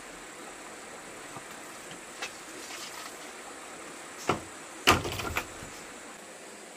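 Steady hiss with a few sharp knocks: a light one about two seconds in, a stronger one past four seconds, then the loudest just after it, trailed by a few smaller clatters.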